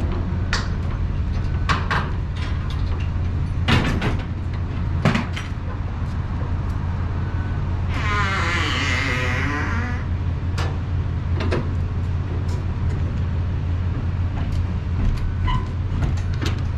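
Rear swing doors of a dry van semi-trailer being swung shut and latched: scattered metal clanks and knocks, with a drawn-out wavering squeal about eight seconds in as a door swings. A steady low engine hum runs underneath.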